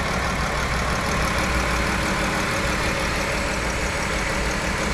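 Chrysler 3.6-litre Pentastar V6 idling with a bad misfire, getting worse as water goes into the cooling system. The sign of coolant getting into the cylinders past a cylinder head warped by overheating.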